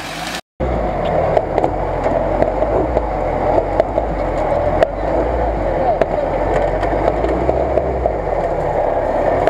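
Lada Niva engine running steadily while the car sits stuck in a muddy stream, a low even hum with scattered clicks over it; the hum eases off near the end.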